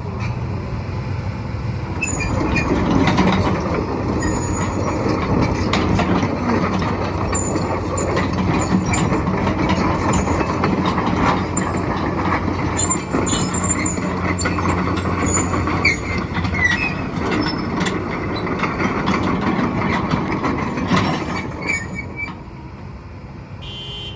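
Komatsu PC170LC-10 excavator travelling on its steel tracks: the engine runs under load while the undercarriage squeals and clanks. It builds about two seconds in and eases off near the end.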